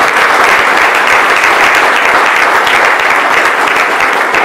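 Audience applauding, a loud, steady clatter of many hands clapping.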